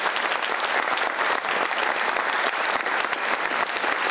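Audience applauding: many hands clapping together without a break.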